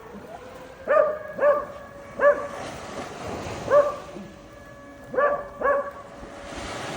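A dog barking: six short, sharp barks at irregular spacing, some in quick pairs.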